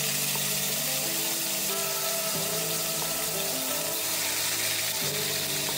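Hilsa fish steaks sizzling steadily as they fry in hot mustard oil in a pan. Slow background music with held notes plays over it.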